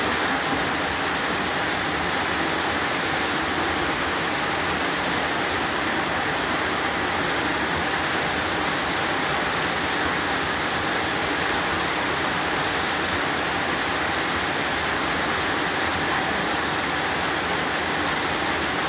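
Steady rain falling on a corrugated metal roof and streaming off its edge: a continuous, even rush of water.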